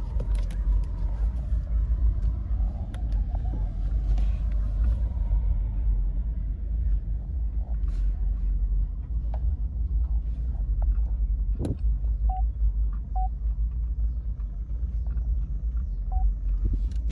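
Car rumbling as it moves: a steady deep drone with scattered small clicks and knocks.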